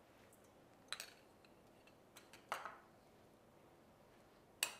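A few light clinks of a metal spoon against small ceramic bowls, with near-quiet in between; the sharpest clink comes near the end.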